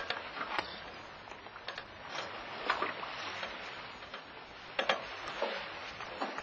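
A sailing yacht under way: a steady hiss of sea water rushing along the hull, broken by short sharp clicks and splashes, the loudest about five seconds in.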